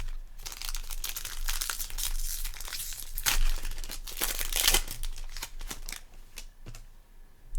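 A trading card pack wrapper being torn open and crinkled. A dense crackle runs for about the first five seconds, followed by sparser crinkles and clicks as the wrapper is handled.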